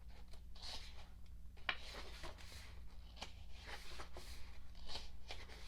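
Glossy photobook pages being handled and turned, with soft paper rustles and light taps at irregular intervals over a faint steady hum.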